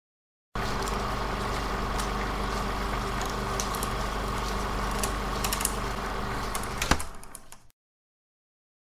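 Film projector sound effect: a steady mechanical whir with scattered light clicks that starts abruptly, ends with a sharp click and runs down to silence within about a second.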